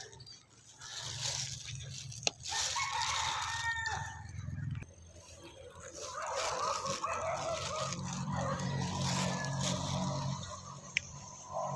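Roosters crowing: one crow about three seconds in, then a longer stretch of crowing through the second half.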